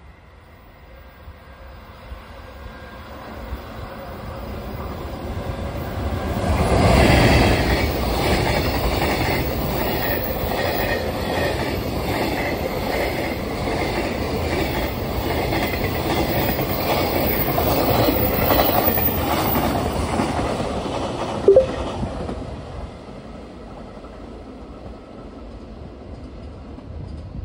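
A long container freight train hauled by an EF210 electric locomotive passing through at speed: a rising rumble as it approaches, loudest as the locomotive passes about seven seconds in, then a steady clickety-clack of wheels over rail joints as the container wagons go by. A brief sharp squeak sounds as the last wagons pass, and the noise drops away about 22 seconds in as the train recedes.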